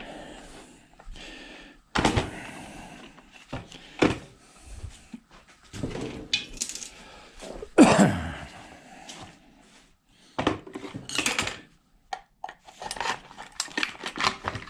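Irregular clattering and knocking of metal and plastic ice-maker parts being handled and pulled apart by hand, with the loudest clatter about eight seconds in.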